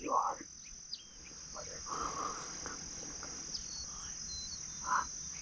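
Insects trilling steadily in one high, even tone. A few short, soft sounds come through just after the start, about two seconds in, and near the end.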